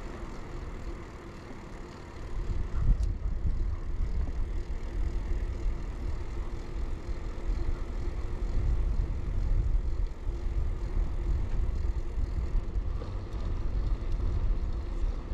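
Riding noise from an early-1990s Bianchi Alante mountain bike heard from the rider's chest: wind buffeting the camera microphone as a gusty low rumble, with the hiss of the tyres rolling. It gets louder about two seconds in, and a faint steady hum runs underneath.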